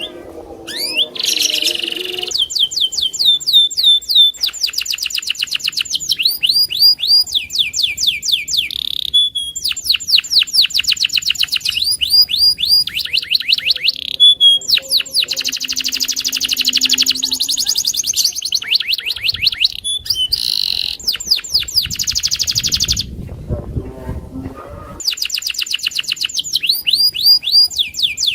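Domestic canary of the long-singing 'loper' type in full song: long runs of rapid trills made of fast, evenly repeated down-sweeping notes, switching between rolls and phrases with only a few brief pauses.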